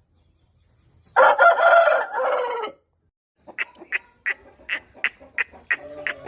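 An Aseel rooster crowing once, a call about a second and a half long starting about a second in. It is followed by a quicker run of short, sharp sounds, about three a second.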